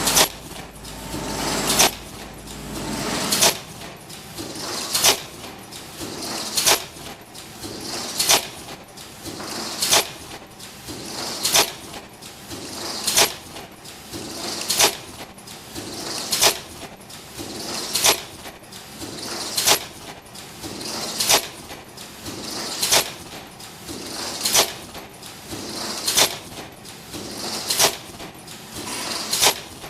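Automatic inner ear loop welding machine for face masks running through its cycle, a sharp clack about every 1.6 seconds with quieter mechanical running between strokes. A low hum underneath stops about three seconds in.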